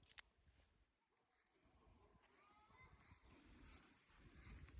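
Near silence with faint, short, high insect chirps repeating, and one soft click just after the start.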